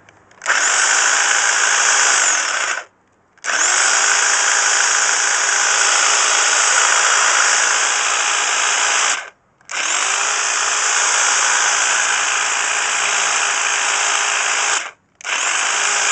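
Electric hedge trimmer running on full mains current, its motor and reciprocating blades switched on and off four times: a run of about two seconds, two of five to six seconds, and a short one near the end. Each start opens with a brief rising whine as the motor spins up.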